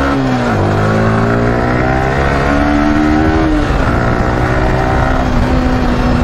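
Yamaha R15's single-cylinder engine accelerating through the gears. Its pitch climbs, drops at an upshift about half a second in and again just before four seconds, then holds nearly steady as the bike cruises.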